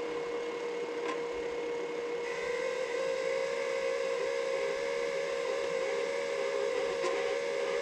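MIG welder's wire-feed motor running with the torch trigger held, a steady whine that steps slightly higher about two to three seconds in. The wire is not feeding through to the torch.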